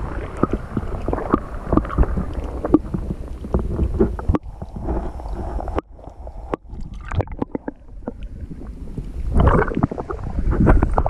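Shallow water sloshing and splashing, with wind rumbling on the microphone and scattered short knocks. The sound drops off abruptly partway through, then the water and wind pick up again.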